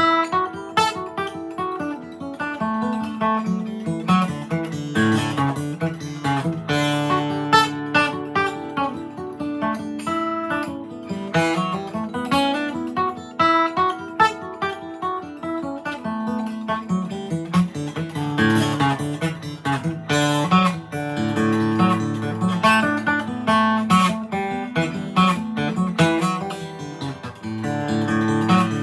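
Gibson J45 acoustic guitar played solo, flatpicking a fast fiddle tune with a quick run of single notes over a moving bass line.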